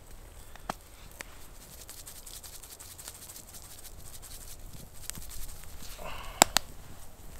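A dog whines briefly about six seconds in, among scattered small clicks and knocks of camp cooking; two sharp clicks right after the whine are the loudest sounds.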